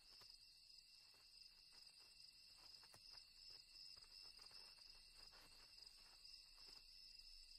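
Faint, steady chorus of night insects: a continuous high trilling held at two or three pitches, with a few soft ticks.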